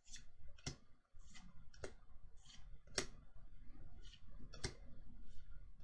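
Pokémon trading cards being handled and flicked through one at a time: a steady series of crisp clicks and short card-on-card swishes, about ten in all, roughly one every half second.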